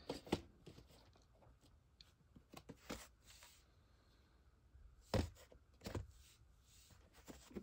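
Faint handling noises of VHS tapes in their sleeves being picked up and set down on carpet: a scatter of soft clicks and knocks, the clearest about half a second in and about five seconds in.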